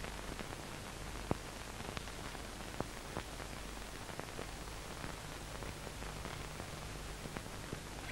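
Steady hiss and crackle of the blank soundtrack of an old 1964 film, with scattered clicks and a low hum underneath.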